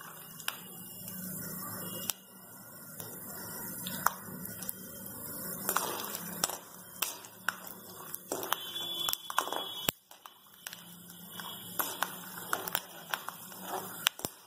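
Peanuts frying in a little oil in a steel kadai on low flame: the oil sizzles with scattered crackling pops, and a steel spatula scrapes and taps against the pan now and then.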